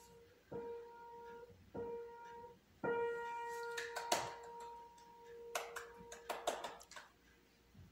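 Upright piano keys pressed by a toddler: one note struck over and over, about once a second, the fourth held ringing for a couple of seconds. Later come a few sharp knocks and jumbled clicks.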